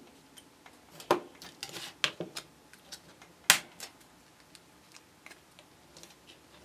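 Art knife scoring a thin plastic sheet along a ruler, heard as a few scrapes and clicks, then the sheet snapped along the score line with one sharp crack about three and a half seconds in. Light clicks follow as the cut strip is handled.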